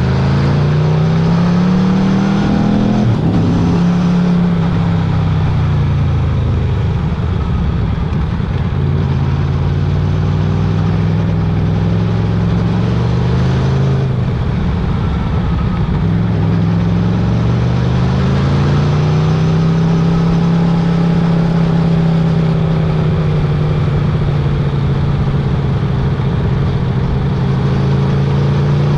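Motorcycle engine running under way, its pitch rising as it accelerates and falling as it eases off several times, with a longer climb near the middle and a slow fall toward the end.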